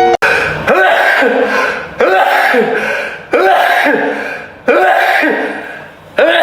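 A man sneezing five times in a row, about one every second and a half. Each sneeze is a sudden loud burst that trails off over about a second.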